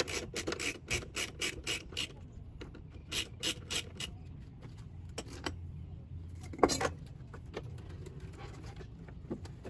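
Socket ratchet wrench clicking in quick runs, about four clicks a second, as small screws are backed out of a lawn mower's plastic under-cover; the clicking pauses and resumes briefly, then a single louder knock comes about two-thirds of the way through.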